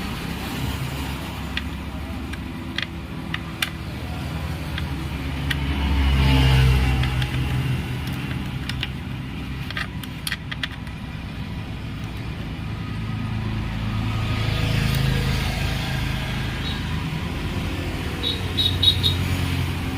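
Screws being driven by hand into the wet grinder's plastic bearing housing, with scattered small clicks and ticks and a cluster of clicks near the end, over a steady low background rumble that swells twice.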